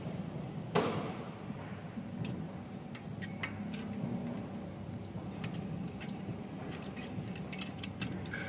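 Light metallic clicks and taps of hand tools (feeler gauge, open-end wrench) on the rocker arms and adjusting screws during a valve-clearance adjustment, with one sharper knock about a second in, over a steady low hum.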